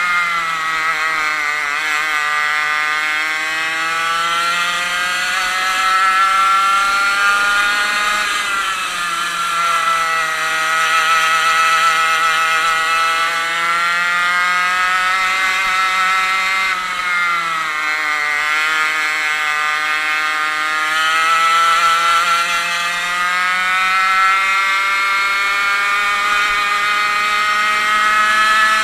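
A 100cc two-stroke racing kart engine heard from on board, running at racing revs. Its pitch climbs steadily along the straights and falls sharply twice, about eight and seventeen seconds in, as the kart slows for corners.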